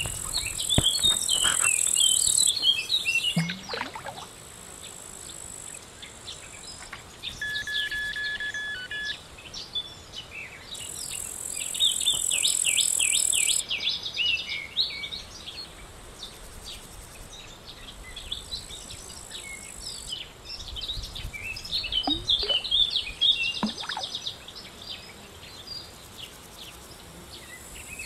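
Songbirds chirping and twittering throughout, with high-pitched insect buzzing that swells in stretches of a few seconds, loudest at the start and again about halfway through. A single steady whistle-like tone sounds for about a second and a half about a third of the way in.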